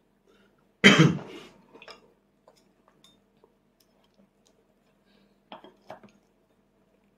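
A single loud cough about a second in, followed by faint scattered clicks and two short, softer sounds near the end.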